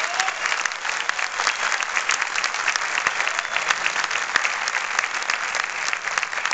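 Audience applauding in a large hall: steady, dense clapping from many hands.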